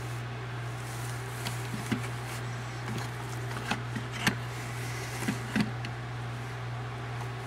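Steady low hum with a handful of short light clicks and taps scattered through the middle.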